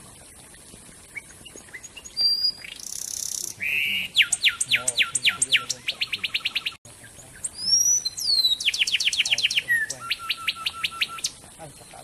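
A wren singing two loud phrases. Each opens with a few whistles or a hissy buzz and runs into a fast string of sharp repeated notes that quickens, with a short pause between the phrases.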